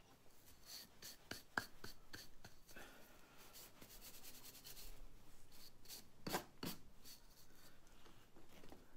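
Faint, close-up clicks and rubbing from a barber's hand tools at work. A quick run of light ticks comes about three to four seconds in, and two louder strokes follow just after six seconds.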